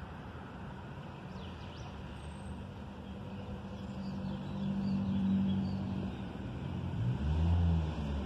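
Vehicle traffic crossing the road bridge overhead: a steady low drone that swells about halfway through and peaks near the end as a vehicle passes, its pitch bending.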